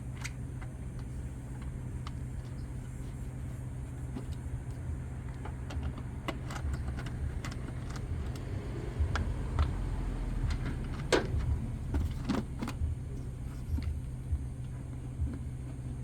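Scattered clicks and knocks of hand tools and plastic parts as the air filter housing of a 1994 Honda Accord is unscrewed and taken apart, over a steady low hum. The handling gets busier and louder about two thirds of the way in.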